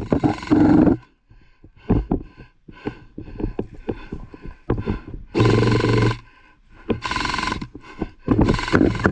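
Long shouted calls from players, four loud stretches, with short sharp clicks in between.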